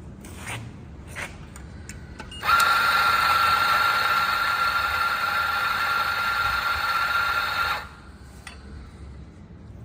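BG64T3 electric coffee grinder test-run at a fine grind setting, its motor giving a steady high whine for about five seconds, starting abruptly and stopping sharply. Two light clicks come before it starts.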